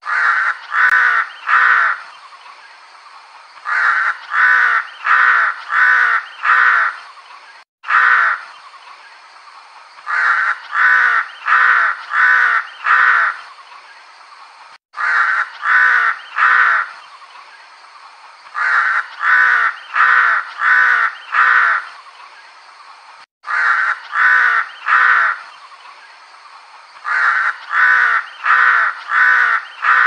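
Crow cawing in runs of three to five caws, the runs a few seconds apart, over a steady background hiss.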